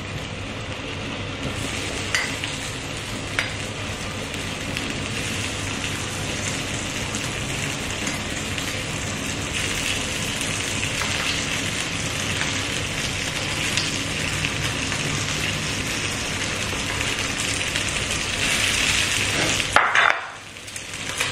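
Marinated chicken pieces sizzling steadily on a hot stone grill plate as more are laid on with metal tongs, with a couple of sharp clicks early on. The sizzle dips briefly near the end.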